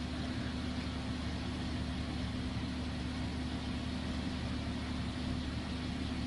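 Car engine idling steadily, a constant even hum.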